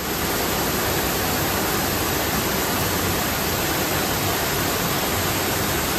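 A steady, even rushing noise with no pitch or rhythm, like static or rushing water.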